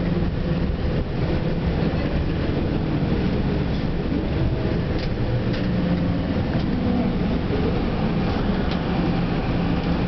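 Tour bus driving, heard from inside the cabin: a steady low engine drone with road noise and a few faint rattles.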